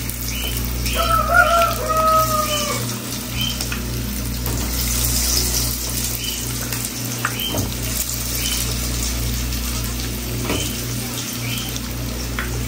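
Corn fritters frying in hot oil, a steady sizzle. A brief high tone sounds about a second in.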